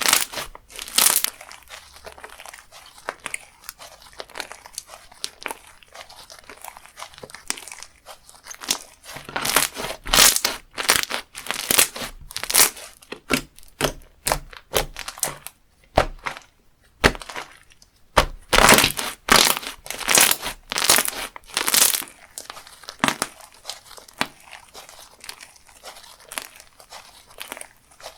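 Slime being squished, pressed and stretched by hand, giving irregular runs of crackling, crinkly pops, loudest in two spells in the middle and latter part.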